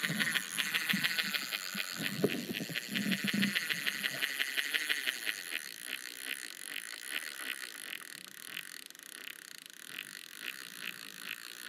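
Spinning reel being cranked to take in line on a bite, its gears clicking rapidly at about ten a second, then slowing to a few a second.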